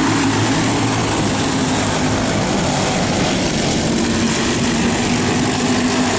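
Racing engines running steadily during a heat race: a continuous engine drone with a dense noisy wash over it.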